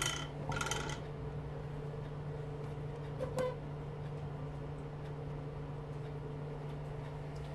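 A steady low hum, with a few brief clicks and rustles in the first second and a single small click about three seconds in.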